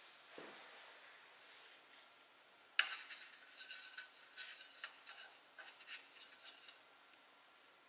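Faint scratching of a drawing tool on paper: a sharp stroke about three seconds in, then a run of short, irregular scratchy strokes for about four seconds.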